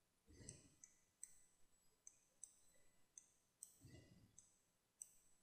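Faint clicks from a computer mouse and keyboard being worked, about two a second, with two soft low rumbles, one near the start and one about four seconds in.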